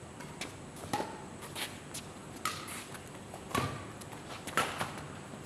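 Badminton rally: a string of short, sharp racquet strikes on the shuttlecock and players' footsteps on the court, about one to two a second, some with a brief shoe squeak.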